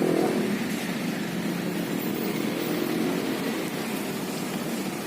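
A motor vehicle's engine hum, strongest at the start and fading within the first second, over steady street noise.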